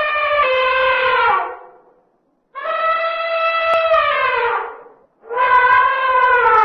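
Elephant trumpeting: three long, loud, brassy calls, each sliding down in pitch as it fades. The first is already sounding and ends within the first two seconds. The second fills the middle. The third starts shortly after and is still going at the end.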